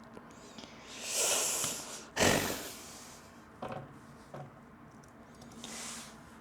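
A person's heavy exasperated breathing: a long hissing exhale about a second in, then a sharp breath puff that blows on the microphone, followed by two small clicks and a softer exhale near the end.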